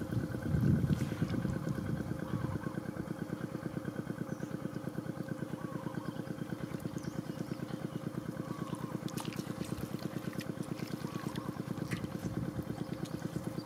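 A small engine running steadily off-camera, a fast, even pulsing that stays at one speed.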